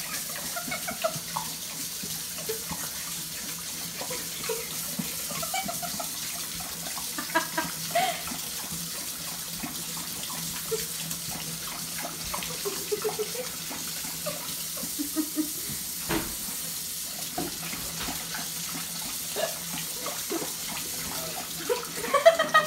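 Kitchen faucet running into a stainless steel sink with a steady hiss while a Saint Bernard laps at the stream, making irregular splashy slurps that come thicker near the end.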